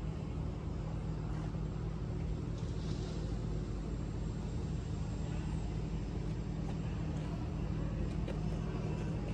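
Steady low engine hum running without change, with a constant drone in its lower pitch.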